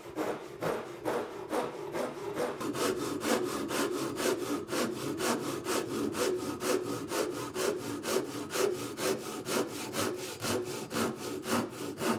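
Ryoba Japanese pull saw crosscutting a wooden board with its fine crosscut teeth: quick, full, even strokes, about three rasps a second.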